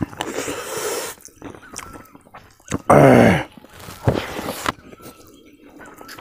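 Close-up eating sounds of mutton curry and rice eaten by hand: wet smacking, slurping and chewing. A brief, loud, falling vocal sound comes about three seconds in.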